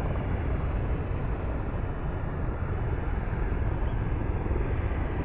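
Boeing 737 airliner's jet engines giving a steady rushing noise with a deep rumble underneath as it touches down and rolls out along the runway.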